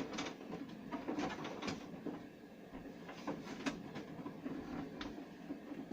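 Plastic clicks and knocks as parts of a vintage Castle Grayskull toy playset are handled: the stiff drawbridge being worked shut and the small sword key being pulled from its latch. About ten separate taps come at an uneven pace.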